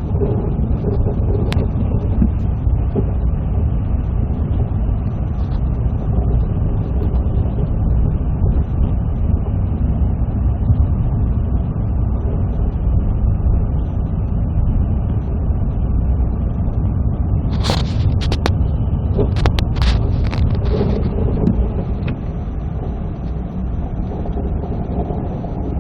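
Car driving on a snowy road: a steady low rumble of road and engine noise, with a few sharp clicks and knocks about three-quarters of the way through.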